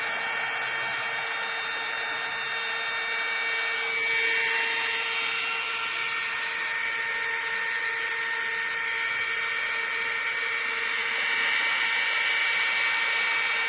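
SEEKONE 600 W mini heat gun running steadily, its small fan motor whining over the rush of hot air while it shrinks heat-shrink connectors.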